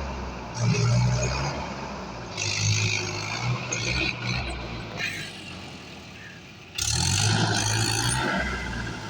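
Heavy machinery's diesel engine revving in surges: a loud burst about a second in, a quieter lull, and another loud burst near seven seconds.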